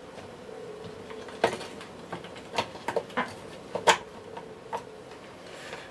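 Top cover of a Hoover Senior vacuum cleaner's motor being fitted back on by hand: about six light clicks and knocks as it is set down and worked into place over the motor, the loudest about a second and a half in and again near four seconds.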